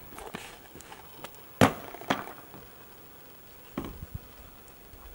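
Skateboard knocks and clacks on the roof of a train car: one sharp hit about one and a half seconds in, a smaller one half a second later, and another near four seconds.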